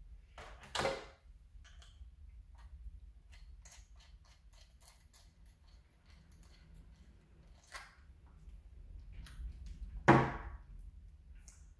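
Hand work with small tools and lure parts on a newspaper-covered table: scattered light clicks and taps, with two short, louder bursts, one about a second in and a stronger one about ten seconds in.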